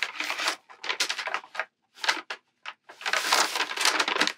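Brown paper bag crinkling and rustling in uneven bursts as a hand rummages inside it and draws out a printed card, with the longest, loudest rustle about three seconds in.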